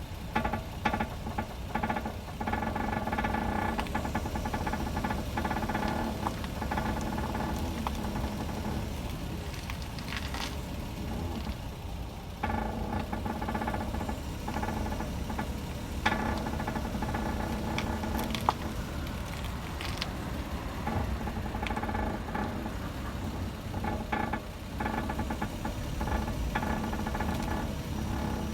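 Car idling while the steering wheel is turned, with scattered knocks and clicks from the front suspension: the abnormal noise of a worn ball joint with play in it. A pitched whine comes and goes in stretches of several seconds as the wheel is turned.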